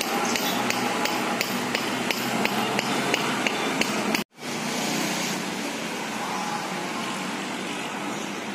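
Rhythmic knocking, about two to three sharp strikes a second, over steady background noise. The knocking stops at an abrupt cut about four seconds in, leaving only the steady background noise.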